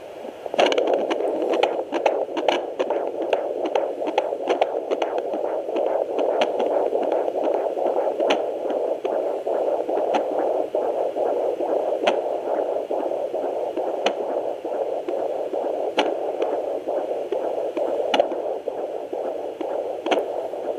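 Fetal doppler (Sonoline B) picking up an unborn baby's heartbeat as a fast, pulsing whoosh, with a sharp click about every two seconds from the baby's hiccups. A flurry of crackles comes in the first few seconds.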